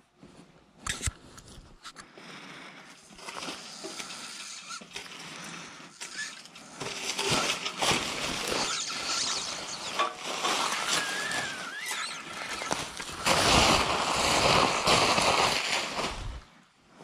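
Plastic packaging crinkling and rustling as it is pulled and handled, growing louder and loudest near the end. A couple of sharp clicks sound about a second in.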